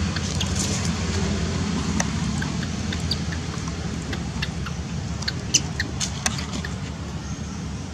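Steady low outdoor rumble with scattered faint high squeaks and clicks, a few louder ones between about five and six and a half seconds in.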